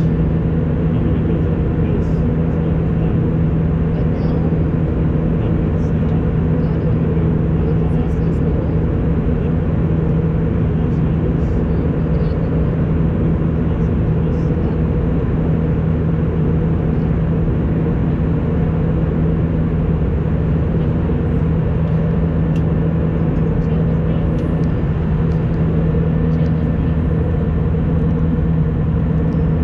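Steady drone of a jet airliner's engines and rushing air heard from inside the passenger cabin in flight, with a constant low hum under it.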